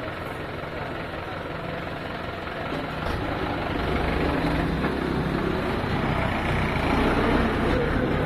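Mahindra tractor's diesel engine running as it hauls a loaded tipping trailer, growing louder and working harder about three seconds in as the trailer moves past close by.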